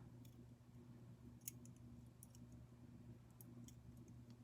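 A few faint, sharp metal clicks from handling an archery hinge release while its hook pin is slid back into the hinge, over a low steady hum.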